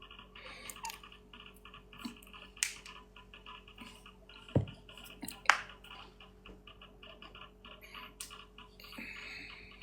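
Faint scattered clicks and taps, a few of them sharper, over a steady low electrical hum.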